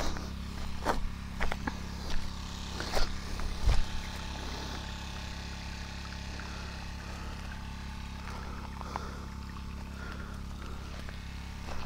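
Small petrol-engine water pump running steadily, a low hum under everything. Footsteps crunch on dry grass and stones during the first four seconds or so.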